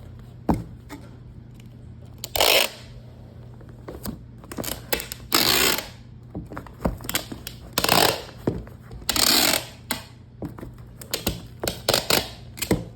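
Handling noises: several short rustling or scraping bursts and a scatter of clicks and knocks, over a steady low hum.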